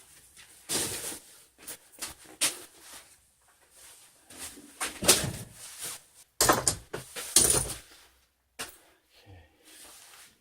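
Carpeted car floor mats being handled and shaken out: irregular rustling and flapping, with loud bursts about a second in, around five seconds in, and again around seven seconds in.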